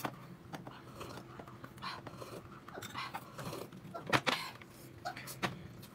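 A person eating at close range: irregular chewing and mouth noises with scattered small clicks, the loudest about four seconds in.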